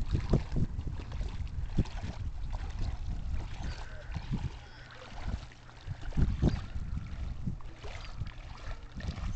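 Water splashing and lapping around a kayak, with irregular knocks and thumps over a steady low rumble.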